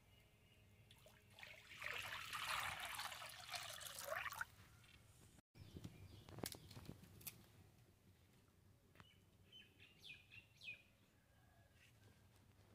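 Water poured from a steel pot into a cooking pot, a splashing rush of about three seconds that stops suddenly. Later come a few light knocks and some faint short chirps.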